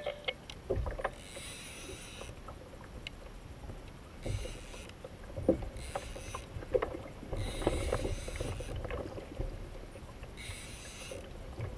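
Water washing and splashing against a fishing kayak's hull, swelling and fading every second or two, with scattered knocks and clicks as fishing rod and reel are handled on board.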